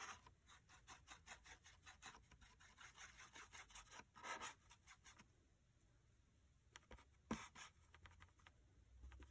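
Faint scratching of a paintbrush stirring paint on a plastic plate palette, about three short strokes a second. It goes quiet about five seconds in, then a few more strokes follow.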